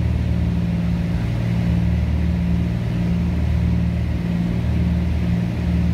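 Cabin drone of a Cessna 310's twin piston engines and propellers in flight: a steady low hum whose pitch bands slowly swell and fade.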